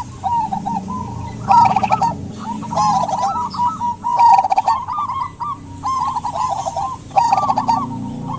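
Zebra doves (local perkutut) cooing in repeated short phrases of quick rising-and-falling notes, one phrase after another.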